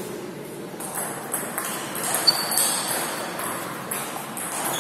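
Table tennis rally: the ball clicks off the rubber-faced paddles and bounces on the table in a quick, uneven string of sharp ticks.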